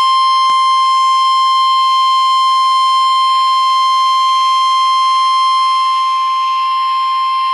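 NOAA Weather Radio warning alarm tone: one loud, steady 1050 Hz tone held without a break, the alert that comes before a warning message is read out.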